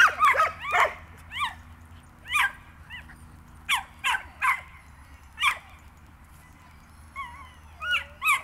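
Small dog barking excitedly in short, high-pitched yaps, about a dozen of them, with a pause of about a second and a half past the middle.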